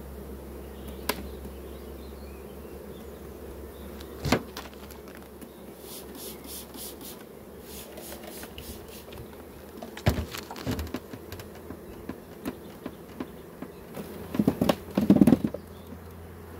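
Honeybees buzzing steadily over an open hive, with the wooden frames knocking and scraping now and then as they are lifted and handled. A quick cluster of knocks near the end is the loudest part.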